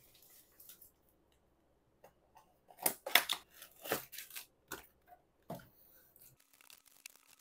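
Foil-wrapped trading card booster packs rustling and crinkling as they are lifted out of a cardboard booster box and handled, in a run of short crackles from about three to six seconds in.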